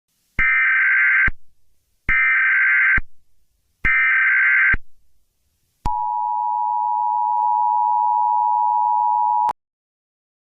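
Emergency Alert System tones: three short bursts of the screeching digital SAME data signal, then the steady two-tone attention signal for about three and a half seconds, cutting off suddenly.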